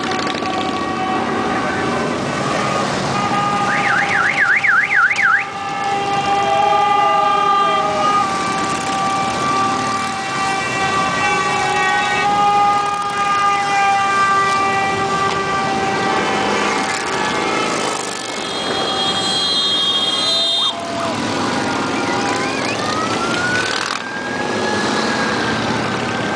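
Vehicle sirens sounding over running motorcycle engines: a fast warbling yelp about four seconds in, long steady tones through much of the time, and a slow rising wail near the end.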